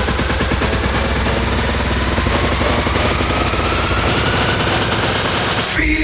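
Electronic dance music build-up: a very rapid drum roll under a noisy sweep that rises slowly in pitch, breaking off just before the end.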